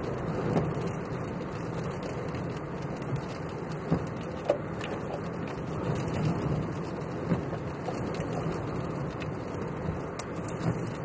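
Steady rush of storm wind and rain over the road noise of a moving vehicle, with occasional sharp taps against the vehicle.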